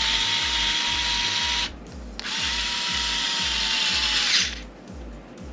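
Pkey cordless electric screwdriver motor whirring at its maximum torque setting, backing a fastener out. It runs in two spells with a half-second stop between them, with a steady whine that drops in pitch as the motor winds down near the end.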